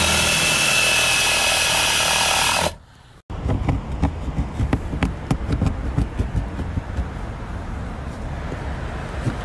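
A power tool running steadily at full speed, cutting into the trunk carpet, stops sharply about two and a half seconds in. Then irregular clicks and knocks follow.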